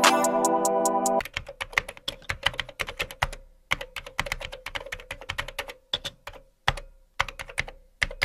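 Background music cuts off about a second in, followed by quick, irregular runs of sharp clicks with short pauses between them, like typing on a keyboard.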